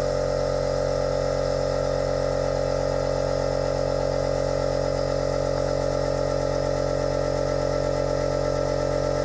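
Steady hum of a running electric machine, unchanging in pitch and level.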